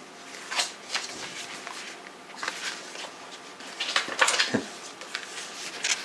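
Paper rustling and light handling noises as the pages of a CD booklet are turned and handled, in several short separate strokes, loudest about four seconds in.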